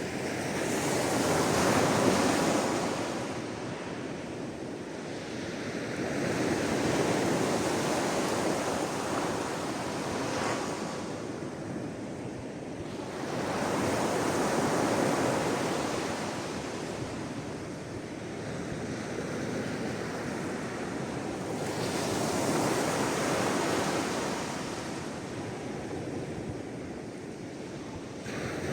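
Sea waves washing onto the shore, each surge swelling and ebbing away in slow cycles of about five to eight seconds.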